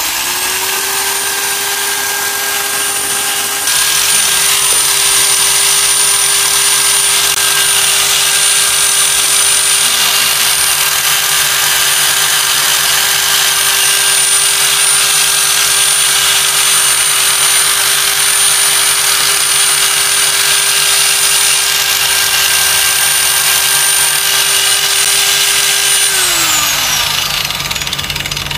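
Lomax LM-2350B 100 mm electric angle grinder running free with no load: a steady whine of the motor and spinning disc, a little louder about four seconds in. Near the end it is switched off and the whine falls away as it winds down.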